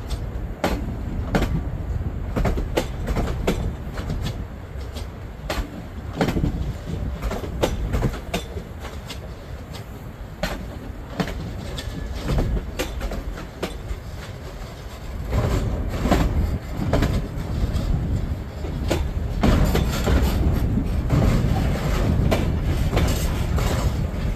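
Unpowered Alstom Coradia Stream electric train cars being towed slowly past, their wheels clicking irregularly over rail joints and points over a steady rolling noise. From about fifteen seconds in, the rumble grows louder as heavier freight wagons roll by.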